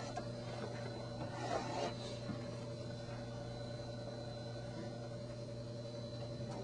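Steady low hum, with faint rustling of a plastic transparency sheet being swapped on an overhead projector about a second or two in.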